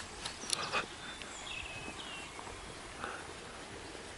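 Quiet rural outdoor ambience with a few short, high bird chirps and a couple of soft clicks within the first second.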